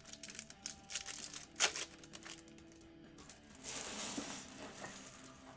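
Foil wrapper of a Topps Stadium Club baseball card pack being torn open and crinkled by hand. A run of sharp crackles, loudest about one and a half seconds in, gives way to a longer rustle near four seconds in, with faint background music underneath.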